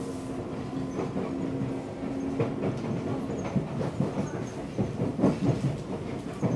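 Seibu 6000 series EMU heard from inside a motor car as it slows on arrival: a steady motor tone that stops about halfway through, with wheels clacking over rail joints and points, more often in the second half.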